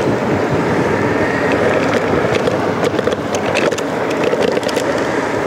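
A steady rush of wind and tyre noise from a ride on rough, cracked asphalt, with a few light rattles partway through. There is no engine sound: the electric mini bike's motor is all but silent under the wind.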